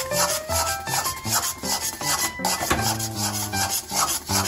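Metal spatula scraping and stirring thick semolina halwa around a steel kadai: repeated rasping strokes, several a second. The halwa is thick enough to pull away from the pan. A melody plays underneath.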